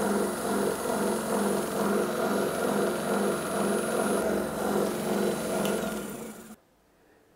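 Surface grinder spindle running, belt-driven by a servo motor, a steady hum with a regular pulsing beat and a faint high whine; the vibration is reduced by a tighter belt but still there. The sound cuts off abruptly near the end.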